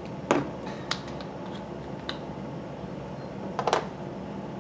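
A spice jar and its plastic cap being handled on a wooden table: a few short, sharp clicks and knocks, the loudest about a third of a second in and a quick cluster near the end, over a steady low hum.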